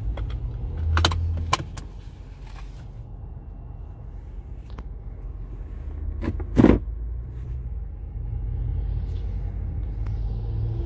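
Low engine and road rumble inside a Toyota Land Cruiser's cabin, louder again in the last few seconds. A couple of sharp clicks come about a second in, and a single louder click at about six and a half seconds as a hand works the centre-console controls by the gear selector.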